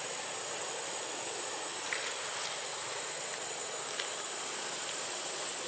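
Steady forest ambience: an even hiss with a thin, steady high-pitched insect drone, and a few faint ticks about two and four seconds in.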